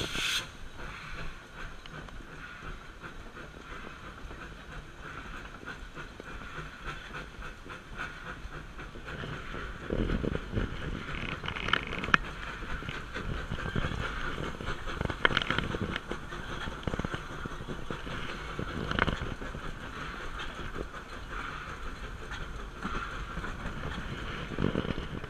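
Narrow-gauge steam locomotive under way, heard from its cab: a steady hiss and running noise, with occasional sharp clunks from the wheels and running gear at irregular intervals.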